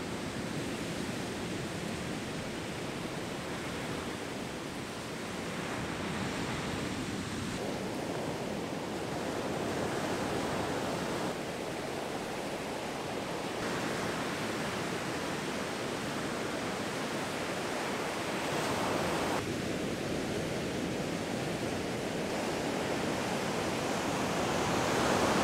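Ocean surf breaking and washing up a sandy beach: a steady rush of waves, its tone shifting abruptly a few times.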